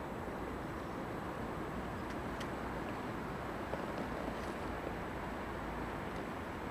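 RC4WD Riinox rock crawler with twin motor-on-axle Novak Fifty Five electric motors crawling slowly over boulders: a steady low rush of drive noise at an even level, with a few faint clicks of the tyres and chassis on rock.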